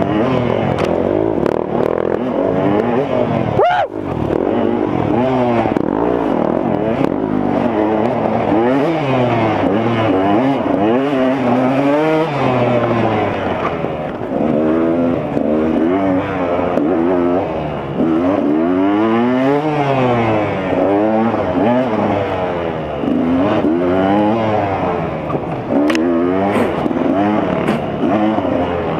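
2015 KTM 200 XC-W's single-cylinder two-stroke engine under hard riding, revving up and dropping back over and over, its pitch climbing and falling every second or two.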